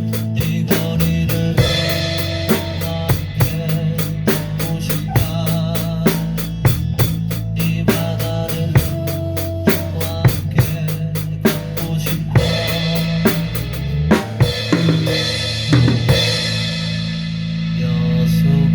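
Drum kit played along with a recorded pop song: steady, evenly spaced hi-hat strokes with kick drum and snare and rimshot hits over the song's bass and melody.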